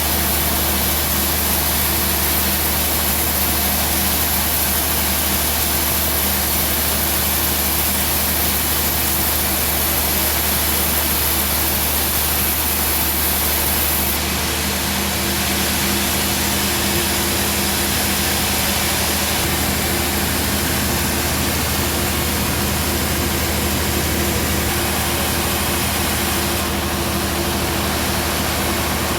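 Band sawmill running steadily: a constant machine drone with a broad hiss over it, easing slightly about halfway through.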